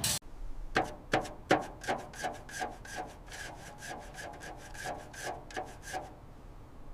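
Quick, even rasping strokes, like hand filing or scraping, about four a second. The first few are louder and the strokes die away about six seconds in.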